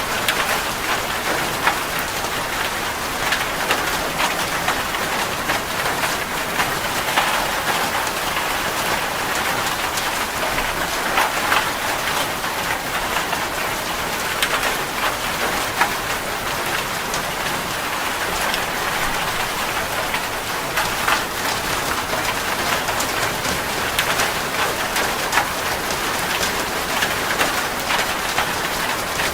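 Heavy rain drumming steadily on a metal roof, a dense hiss with many individual drop hits ticking through it.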